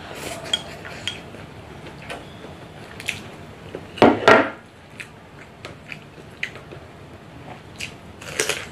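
Plastic chopsticks clicking and scraping against a small ceramic rice bowl during eating, in scattered short taps, with a louder double clatter about four seconds in.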